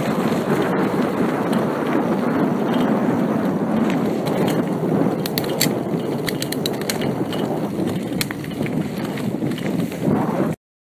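Rolling ride along a rough woodland path: a steady rumble of wheels and wind on the microphone, with scattered crackles and clicks from the path surface. It cuts off suddenly near the end.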